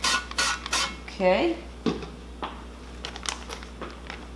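Olive oil sprayer bottle spraying a fine mist into an air fryer's non-stick pan in three or four quick hissing bursts during the first second. A few faint clicks follow.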